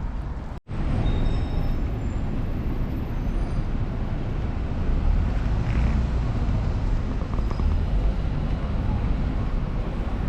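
Steady street traffic noise, cutting out for an instant about half a second in.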